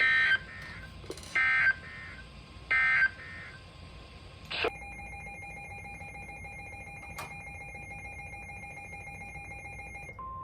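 Three short, loud bursts of EAS/SAME digital data tones, the end-of-message code that closes a weather warning. After a click, a quieter steady two-note tone sounds until near the end, when a single steady tone begins.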